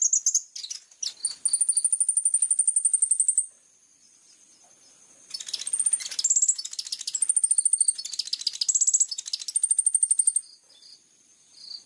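High-pitched songbird song in rapid trills and sharp chips, in two long bursts with a pause of about two seconds between them: a recorded 'isian' song phrase of the kind used as masteran to teach kolibri ninja songbirds.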